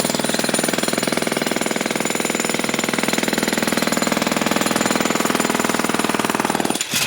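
Jackhammer hammering continuously in rapid, even blows, then stopping near the end.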